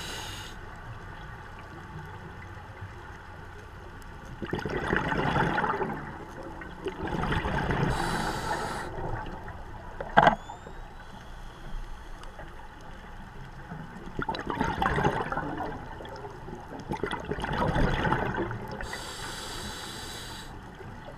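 Underwater scuba breathing through a regulator: a rush of exhaled bubbles every few seconds, with hissing inhalations in between, and one sharp click about ten seconds in.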